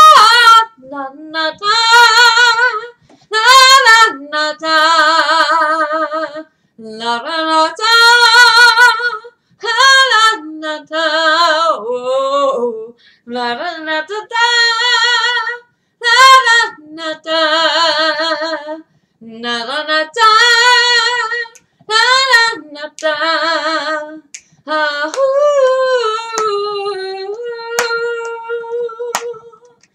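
A woman singing a cappella, in phrases of long held notes with a wavering vibrato, breaking briefly for breath between phrases. Two sharp clicks sound near the end.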